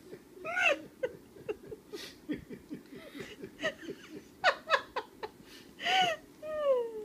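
Laughter in many short bursts, with high squeals about half a second in and near six seconds, and a long falling squeal at the end.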